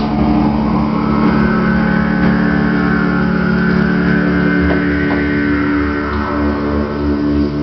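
Analog Eurorack modular synthesizer playing a dense, sustained drone of stacked steady tones. A higher tone rises slightly about a second in and holds, and from about halfway through a low throbbing pulse comes in at about two to three beats a second.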